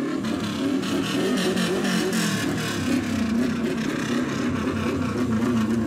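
A motorcycle engine running and revving, its pitch rising and falling, as the bike with two riders comes around a corner into view.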